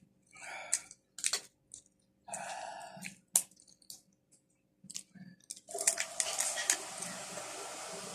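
Close-up eating of creamy shrimp and crab: wet squishing and chewing with sharp clicks of crab shell being cracked and picked. About two-thirds of the way in, a steady hiss sets in under a few more clicks.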